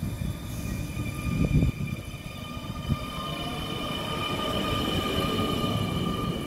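Electric traction motors of an NS Sprinter New Generation multiple unit whining as the train pulls away from the platform, several steady high tones over a low rumble, growing louder through the second half. A brief low thump comes about a second and a half in.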